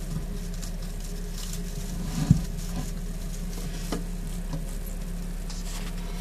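Light crinkly rustling and faint ticks over a steady low hum, with one sharp click a little over two seconds in and a softer click near four seconds.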